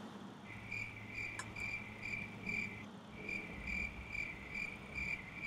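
Faint cricket chirping in even pulses, about two a second, with a short pause about three seconds in.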